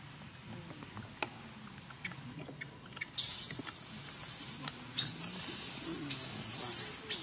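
Faint scattered clicks, then about three seconds in a loud, high-pitched insect buzz starts suddenly, drops out briefly twice, and cuts off near the end.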